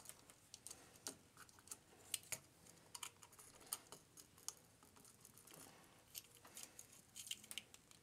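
Faint, irregular small clicks and taps of hard plastic action-figure parts being handled and pressed together, as a clip-on waist piece is snapped around the figure's hips.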